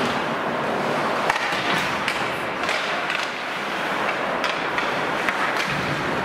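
Ice hockey play: skate blades scraping and carving the ice under a steady rink noise, with scattered sharp clacks of sticks and puck.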